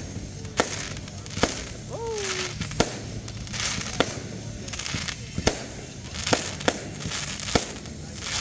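Aerial fireworks shells bursting: about eight sharp bangs at uneven intervals, with hissing between them.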